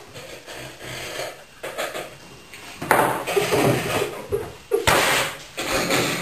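Men with mouths full of dry breadcrumbs puffing and spluttering air through their lips as they try to whistle, with no clear whistle tone coming out. A sharp knock sounds near the end.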